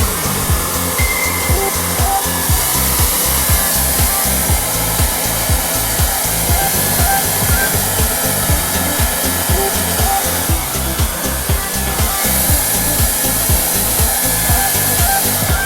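Hand-held hair dryer blowing steadily, its airy hiss swelling louder for a few seconds at a time, over background music with a steady beat.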